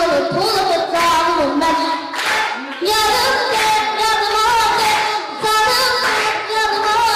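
A child singing into a microphone over backing music, with long held notes that waver in pitch.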